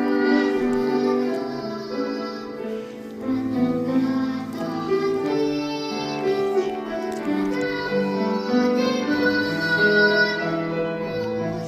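Children's vocal ensemble singing in parts over instrumental accompaniment, holding long sustained notes.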